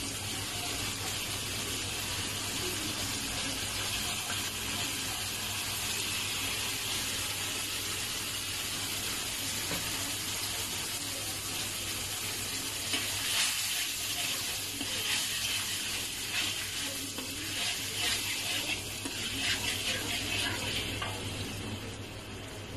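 Tomato and chili sauce sizzling in a wok. In the second half, a metal spatula scrapes and stirs against the pan in a run of short strokes.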